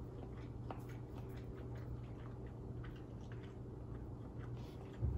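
Faint scattered soft clicks over a steady low hum, from quiet chewing and a slice of deli chicken breast being lifted off a plate and pulled apart, with a brief low thump just before the end.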